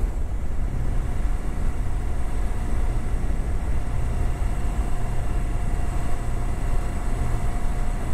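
Yamaha Fazer motorcycle being ridden at a steady speed: a constant rumble of engine and wind noise, with no change in speed.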